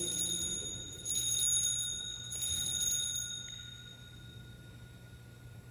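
Altar bells rung three times, each a bright high chime that rings on and fades, the last dying away about four seconds in: the bells marking the elevation at the consecration of the Mass.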